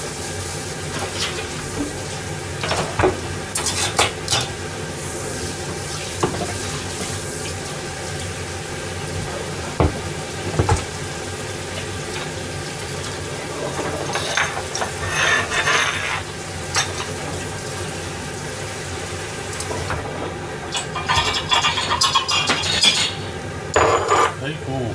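Napa cabbage and mushroom soup coming to the boil in a large aluminium pan, bubbling and hissing, with a few sharp clicks. The bubbling grows busier and louder near the end.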